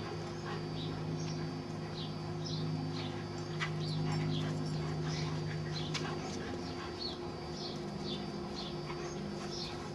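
Dogs play-fighting, one giving short high-pitched whimpers about twice a second, over a steady low hum.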